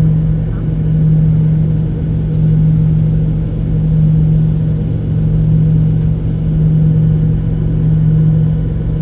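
Cabin noise of a Boeing 737-800 in flight: the CFM56-7B jet engines make a steady low drone with a strong hum that slowly swells and fades, about once a second or so.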